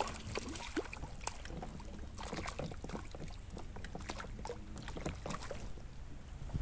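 Light rain and water ticking and splashing irregularly around a small fishing boat, over a low steady hum.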